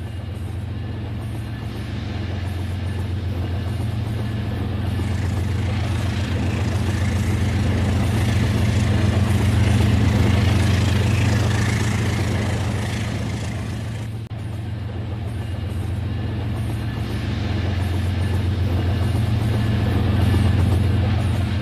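Toy train running on its track: a steady motor hum under a rumbling wheel noise that grows louder towards the middle, cuts out for an instant about two-thirds of the way in, and swells again near the end.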